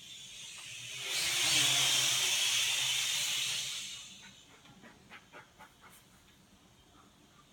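Small FPV quadcopter's electric motors and propellers passing close by: a loud hissing whoosh that swells and fades over about three seconds, its pitch dropping as it goes past. A few short clicks follow.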